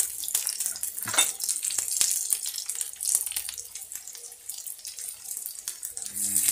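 Sliced onions, garlic and ginger frying in hot oil in a pan: a steady sizzle with irregular crackles and pops.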